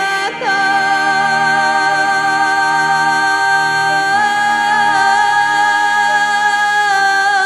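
Background music of long, sustained notes, the pitch shifting only a few times.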